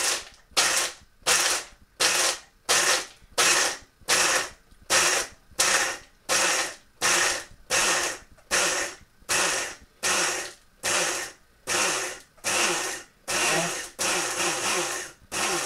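Breville Blend Active personal blender pulsed over and over in short bursts, a little under two a second, its motor spinning up and its blade chopping dry roasted peanuts; near the end the pulses run almost together.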